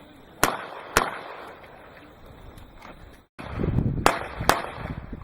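Gunshots fired in quick pairs during a practical shooting stage: two sharp shots about half a second apart, then, after a brief dropout in the sound, two more about half a second apart over low rumbling noise.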